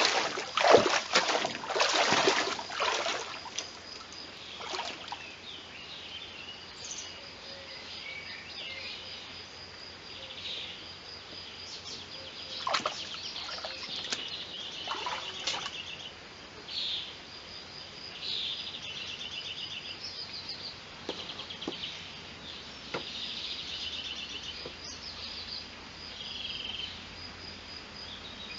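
Boots splashing through a shallow stream for the first three seconds or so, then several small birds singing and calling over the low rush of the stream, with a high note repeated steadily and a few trills. A couple of brief rustles about halfway through.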